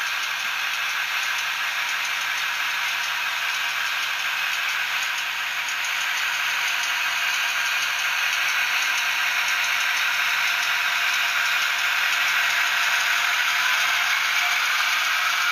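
Diesel engine sound from the sound decoder in an OO gauge model of a British Rail Class 28 Co-Bo, imitating its Crossley two-stroke engine running under way, played through the model's small speaker. The sound is thin and trebly, with no deep bass, and grows slowly louder towards the end.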